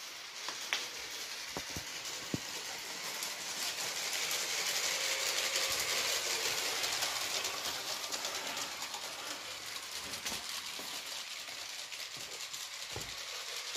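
Brick-built model train, a modified Bluebrixx ET 420 electric multiple unit, running on plastic toy track. It makes a whirring, rattling hiss from its motor and wheels that swells as it passes close, about four to eight seconds in. A few sharp clicks come in the first couple of seconds.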